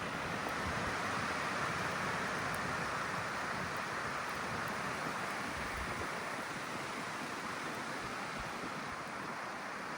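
Blizzard wind gusting at around 70 km/h, a steady rushing hiss that swells over the first couple of seconds and eases slightly later on, with low buffeting of the wind on the microphone.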